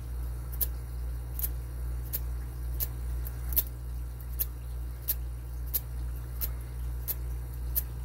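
Sparrows hybrid lock pick zipped out of a small brass five-pin padlock again and again under very light tension: a short, sharp metallic click about every two-thirds of a second as the pick is pulled fast across the pins.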